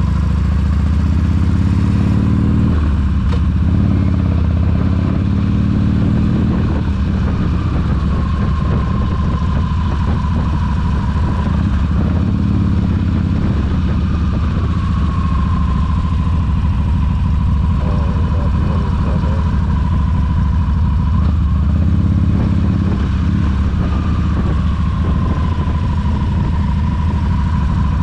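Harley-Davidson cruiser's V-twin engine running steadily at low road speed, heard from the rider's seat with wind and road noise. A thin whine slides down in pitch three times.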